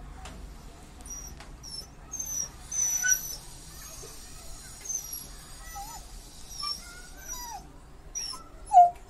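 Labrador dog whining in short, soft, high-pitched whimpers, with a louder whine near the end: it is complaining because it wants to go outside.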